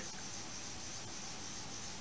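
Faint steady hiss of room tone, with no distinct sound event.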